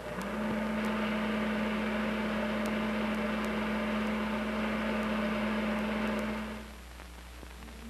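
Film projector running: a steady hum with a hiss over it. It starts just after the beginning and fades out about a second before the end.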